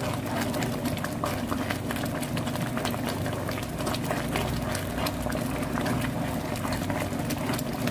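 Thick rice and vegetable porridge simmering in a frying pan, with a steady stream of small bubbling pops and a spoon stirring through it. A steady low hum runs underneath.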